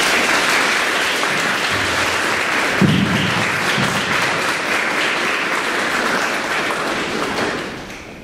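Audience applauding in a hall, steady and then dying away near the end.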